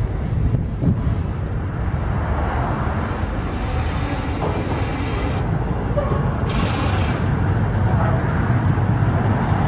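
Intermodal freight train of pocket wagons loaded with semi-trailers and tank containers rolling past: a steady rumble and clatter of wheels on rails, with a hiss that swells and fades around the middle.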